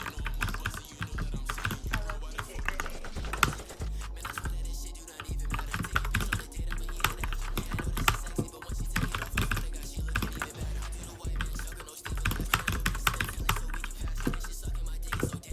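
Typing on a Royal Kludge RK61 mechanical keyboard fitted with Holy Panda tactile switches: a dense run of quick key clicks, over background hip-hop music with a steady beat.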